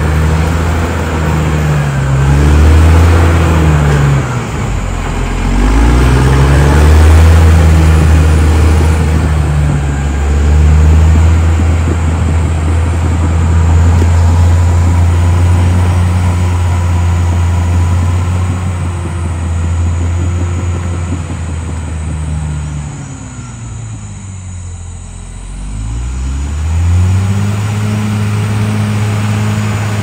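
Caterpillar D6R XL bulldozer's diesel engine working under load as the blade pushes soil, its pitch rising and falling. It drops to a low idle for a couple of seconds near the end, then revs back up to a steady higher speed.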